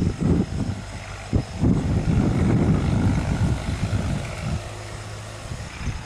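Gusty wind buffeting the microphone: an uneven low rumble that swells and drops every second or so.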